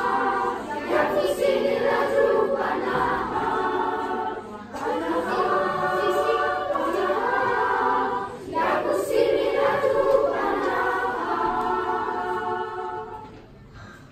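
A school choir singing in parts, phrase by phrase, with short breaks between phrases. Near the end the last chord dies away.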